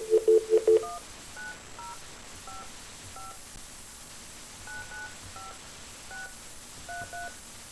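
Telephone touch-tone dialing: a rapidly pulsed two-note dial tone that stops in the first second, then about eleven short two-note keypad beeps, one per digit, at an uneven pace as a phone number is keyed in.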